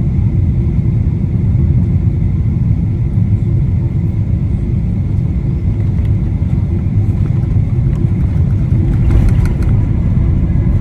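Steady, loud low rumble of a moving vehicle, with a short rise of hiss about nine seconds in.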